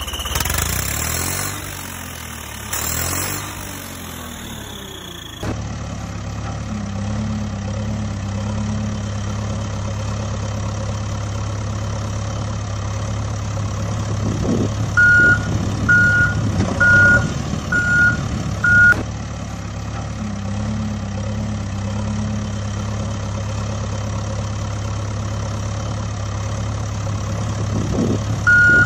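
Steady diesel engine idling drone of a backhoe loader, a machine sound laid over a toy-vehicle video, with a run of five reversing beeps about one a second midway and one more beep near the end. The first few seconds hold a different, changing sound before the steady drone sets in.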